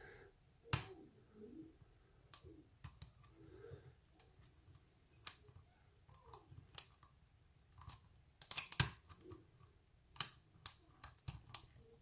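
Faint, irregular small metallic clicks and scrapes of a hook pick working the pins of a pin-tumbler lock under a tension wrench, with a few sharper clicks in the second half.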